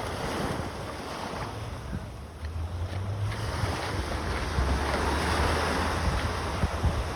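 Sea waves washing onto a beach, with wind rumbling on the microphone. The wash swells louder about two and a half seconds in.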